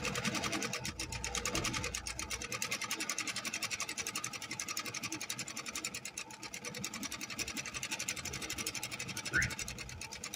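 Singer 3103 Dinastía domestic sewing machine running steadily and stitching fabric, its needle going in a rapid, even clatter.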